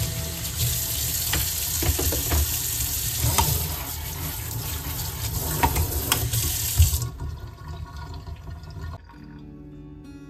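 Water running from a tap into a sink, with light splashing and clatter, over soft background music. The water stops about seven seconds in, leaving only the music.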